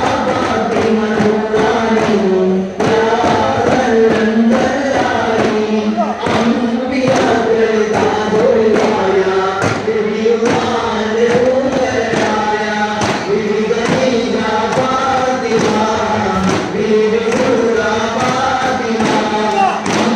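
Daf muttu: a group of singers chanting a devotional song in chorus over the steady beat of daf frame drums.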